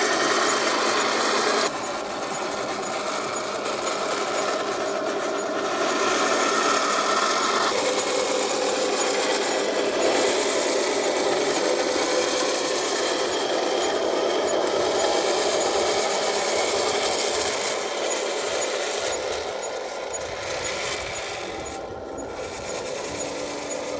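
Radio-controlled model KV-2 tank driving: its tracks clatter and rasp steadily over the ground under a steady whine of its drive motors and gearboxes.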